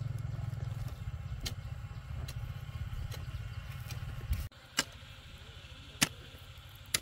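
An engine running nearby with a steady low rumble, cut off suddenly about two-thirds through. Then a hoe chopping into dry soil, a sharp strike about once a second.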